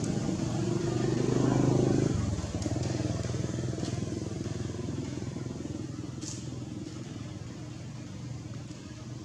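A motor vehicle engine humming steadily, growing louder and then falling away sharply about two seconds in, leaving a fainter steady hum.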